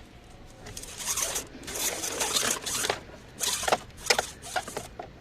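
Reverse-camera wiring harness being pushed and pulled behind plastic dashboard trim: rustling and scraping in several bursts, the loudest between about one and five seconds in.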